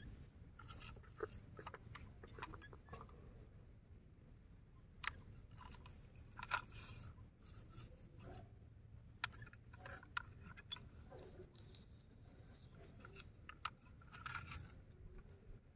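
Faint, irregular crunching and scraping of a small plastic toy excavator's bucket digging in wet mud, with scattered light plastic clicks as the arm is moved by hand.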